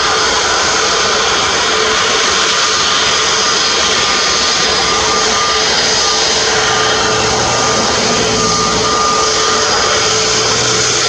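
Twin jet engines of an Airbus A321neo airliner at taxi power: a steady jet whine over an even rush of air, with no rise or fall.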